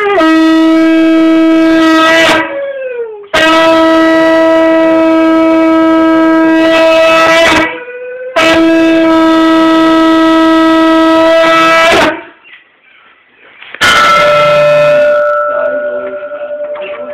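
Conch shell (shankha) blown in long, loud, steady blasts, the ritual conch of an aroti: one already sounding that ends about two seconds in with a drop in pitch, then two blasts of about four seconds each, and a shorter, weakening one near the end.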